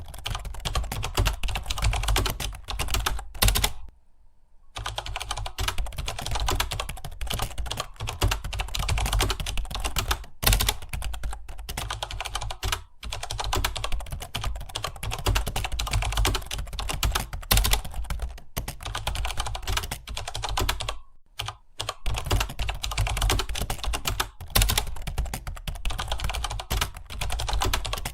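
Fast, continuous typing on a computer keyboard, with a brief pause about four seconds in and another a little after twenty seconds.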